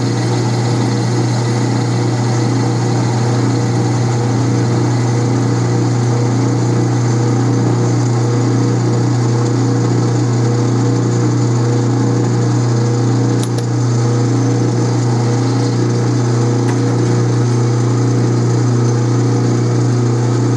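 Atlas 12-inch lathe running steadily at about 400 RPM while a carbide tool takes a heavy facing cut, about 35 thousandths deep, across the end of a stainless steel bar. The motor and drive give a steady low hum under the sound of the cut.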